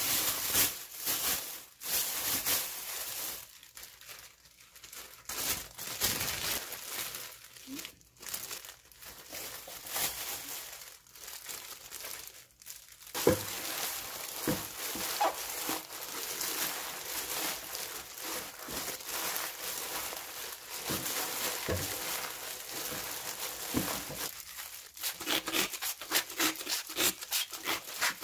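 Plastic crinkling and rustling: a black plastic bag being handled, then thin disposable plastic gloves crinkling as hands rub and wash leafy greens in a stainless steel bowl. The rustling comes in separate handfuls at first and runs on more steadily from about halfway, with quick short bursts near the end.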